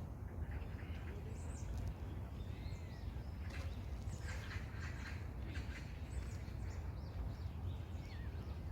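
Birds chirping and calling, scattered short calls with a few small rising and falling whistles, over a steady low rumble.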